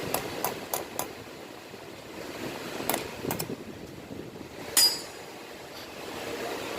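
Metal tools and engine parts clicking and clinking during an engine teardown: a few quick taps in the first second, a couple more around three seconds, and one loud ringing metal clink a little before five seconds.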